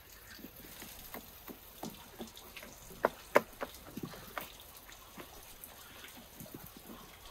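Hands pressing and patting soft dough flat on a floured wooden board, a string of soft, wet-sounding pats and taps, two of them louder about three seconds in.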